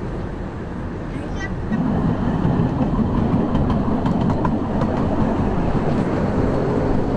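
Miniature 15-inch-gauge park railway train running, heard from aboard an open carriage. The wheels rumble steadily on the rails with scattered clicks, and the rumble gets louder about two seconds in.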